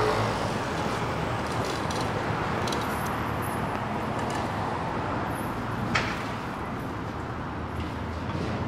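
City street traffic: a steady wash of passing cars and road noise, with one sharp click or knock about six seconds in.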